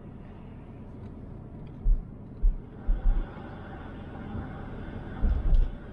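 A car driving, heard from inside: a steady low road rumble with several short, deep thumps, a few of them in quick pairs.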